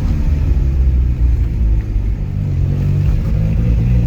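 Volkswagen Gol G3's engine running under way, its note climbing in pitch as the car accelerates and then dropping back lower near the end.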